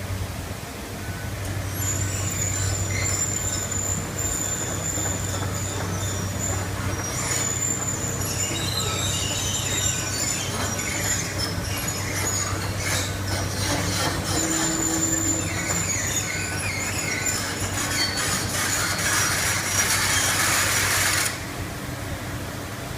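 Steel sheets being worked into a trench: high metal-on-metal squealing and scraping with scattered clanks, over the steady hum of heavy construction machinery. A louder grinding hiss builds near the end and cuts off suddenly.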